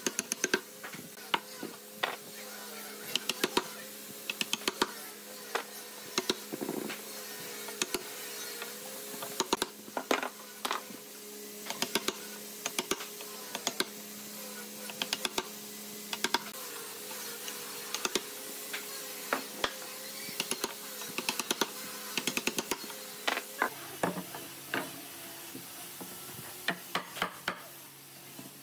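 Wooden mallet striking a steel chisel to chop a mortise into a hardwood board: sharp knocks in quick clusters of a few blows, with pauses between.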